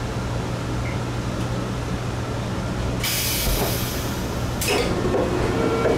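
Steady low hum inside a Taiwan High Speed Rail train car. About three seconds in, a loud hiss of air starts suddenly and lasts just under two seconds, ending in a knock.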